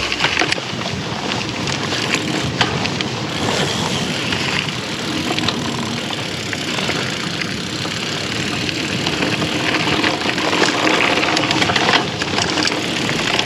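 Klein Attitude mountain bike rolling fast over dirt singletrack, picked up by a GoPro on the rider: a steady rushing noise of tyres and air, with many small clicks and rattles from the bike over bumps.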